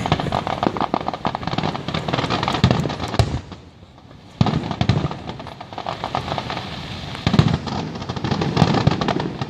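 Fireworks going off in rapid crackling volleys of sharp pops with deeper booms, pausing briefly a little before halfway and then bursting back in loudly.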